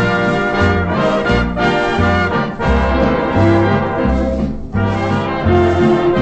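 Dance orchestra playing a foxtrot from a 78 rpm record, with the brass to the fore over bass notes stepping about twice a second; the sound has the narrow, top-clipped range of an old recording.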